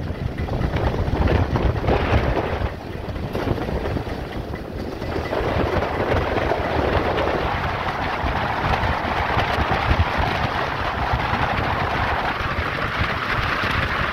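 Strong wind buffeting the microphone: a loud, gusting rumble with a steady rushing noise over it.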